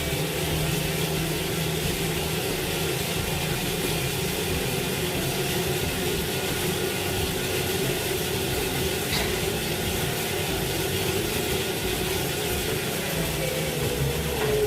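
Tacx Neo smart trainer and the bike's drivetrain running steadily under continuous pedalling, a constant whir with a low hum.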